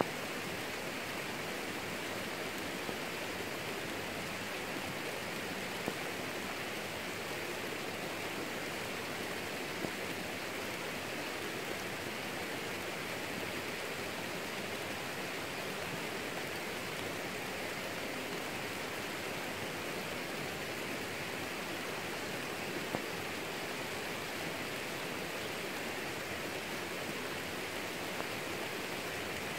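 Steady rain falling on garden plants: an even hiss, with a few sharper ticks now and then.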